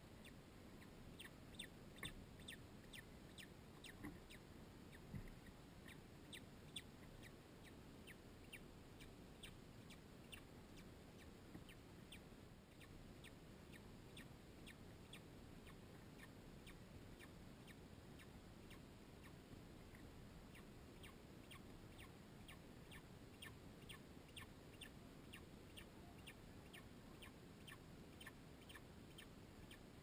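Secretary bird chick peeping while being fed: faint, short, high-pitched peeps repeated about two to three times a second, sparser through the middle.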